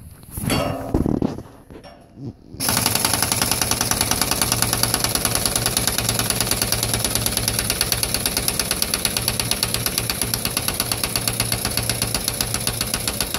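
A few knocks, then, about two and a half seconds in, a three-quarter-inch heavy-duty pneumatic impact wrench at 90 PSI starts hammering rapidly and steadily on a stuck 46 mm axle nut of a 1970 VW Type 2. The hammering goes on without the nut breaking loose.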